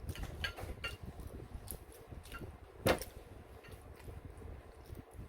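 Eating utensils clicking against a bowl: a few light taps, then one sharper clink about three seconds in.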